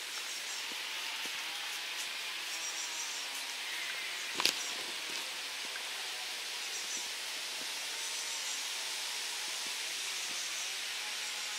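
Quiet outdoor forest ambience, a steady hiss with faint high-pitched chirps, broken once by a single sharp click or snap about four and a half seconds in.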